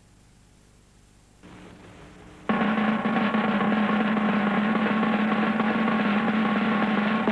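A snare drum roll with music: it comes in quietly about a second and a half in, then turns loud and steady about a second later and holds.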